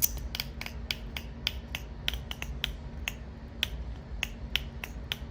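Zirconium fidget slider with Ultem plates being slid back and forth, giving a quick run of sharp clicks about three or four a second. It has a strange sound to it.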